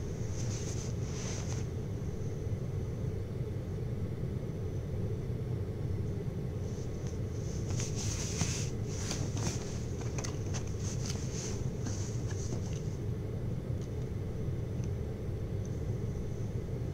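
Steady low rumble of background room noise, with soft rustling of bedding and clothing as someone sits up in bed: once right at the start, and again in a longer spell from about seven to thirteen seconds in.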